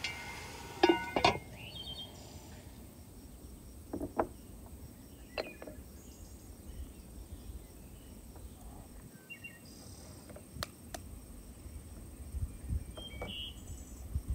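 Kitchenware being handled and set down on a wooden table: scattered sharp knocks and clinks, two loud ones with a brief ring about a second in. Near the end an egg is knocked against the rim of an enamel bowl. Faint outdoor background runs underneath.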